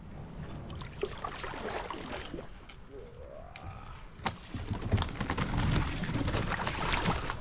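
Canadian canoe moving through flooded scrub: water sloshing and splashing around the paddle and hull, with twigs and branches scraping and clicking against the boat. It grows louder from about halfway as paddling picks up, with a short rising squeak just before.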